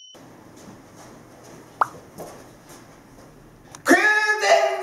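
Quiet room tone with a single short rising pop about two seconds in. Near the end a man bursts into loud shouting.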